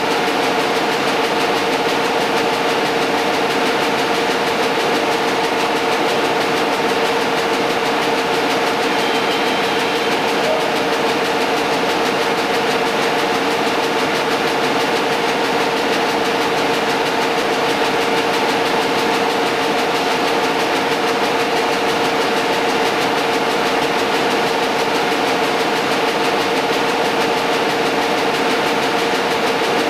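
A machine running steadily: a constant noisy mechanical drone with a few held tones.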